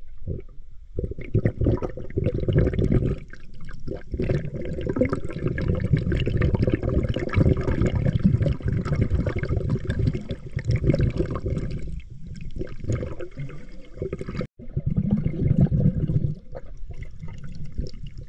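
Rushing, bubbling water noise recorded underwater, dense and low. It cuts out for an instant about three-quarters of the way through.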